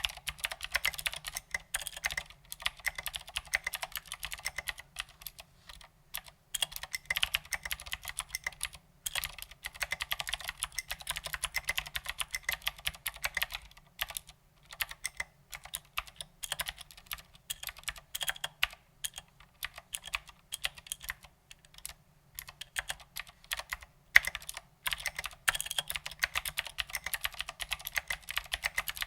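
Typing on a Ducky Legend mechanical keyboard with clicky Cherry MX Blue switches and SA-profile ABS doubleshot keycaps: fast, steady keystrokes with sharp clicks, broken by a few brief pauses.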